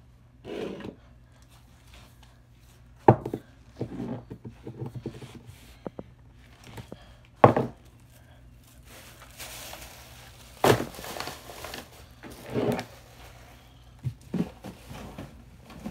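Scattered thumps and knocks with rustling of bedding and clothes as a bed is cleared by hand; the sharpest knocks come about three, seven and a half and eleven seconds in.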